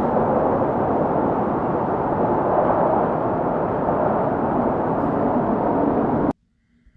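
Strong wind in a snowstorm: a steady, dense rushing noise that cuts off abruptly near the end, leaving near silence with a faint low hum.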